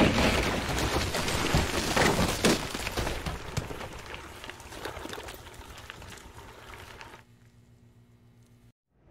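Bicycle rolling over a rough dirt and gravel track: a rush of tyre and wind noise full of small knocks and rattles from the bumps. It fades through the second half and drops away about seven seconds in, leaving a faint low hum.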